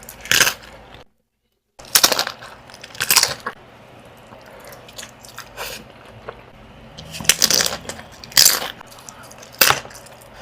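Close-miked crunchy eating: a person biting and chewing crisp food, giving a string of loud sharp crunches every second or two, broken by a moment of dead silence about a second in.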